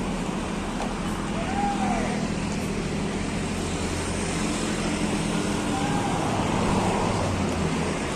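Diesel bus engine idling steadily, a constant low hum under general outdoor traffic noise.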